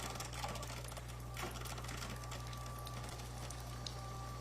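Cuisinart SS-10P1 Premium single-serve K-cup coffee maker brewing a cup: a steady buzzing hum with fast, fine rattling from its pump pushing water through the pod.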